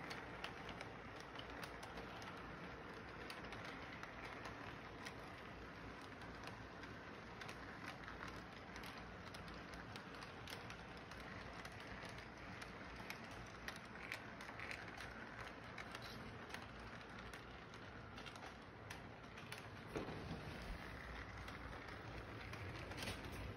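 Electric model train running along its track: a steady running noise with many small clicks from the wheels on the rails.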